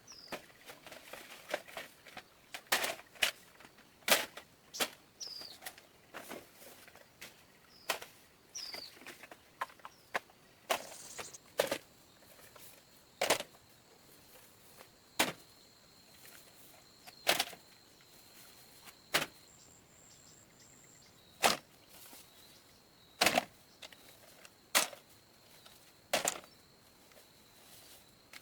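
Repeated sharp strikes or knocks, quick and irregular at first, then settling to about one every two seconds, with a few faint chirps between them.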